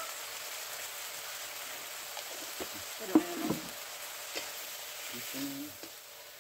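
Cabbage, carrot and chicken sizzling in a steel wok over a wood fire while a spatula stirs them. One brief, louder knock comes about halfway through, and the sizzle fades near the end.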